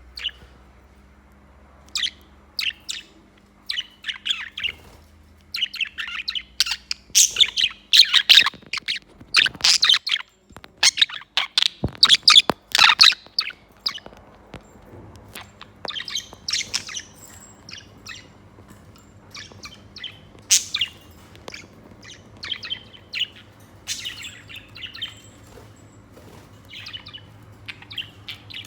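Pet budgies chirping and chattering in short, high, rapid bursts, busiest in the first half and sparser later.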